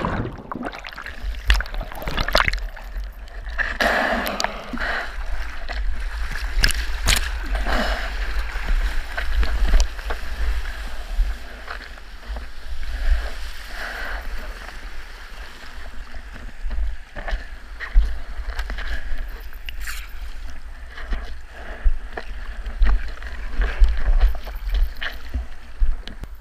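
Seawater splashing and sloshing around a GoPro camera in its waterproof housing as a longboard moves through whitewater. It is muffled for the first moment while the camera is underwater. A constant low rumble runs under irregular sharp splashes.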